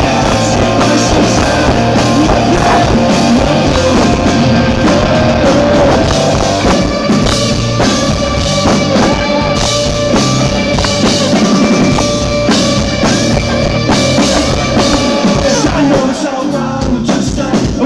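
Live rock band playing at full volume: electric guitars, bass guitar and drum kit driving along with held guitar notes over steady drumming. The low end drops back near the end.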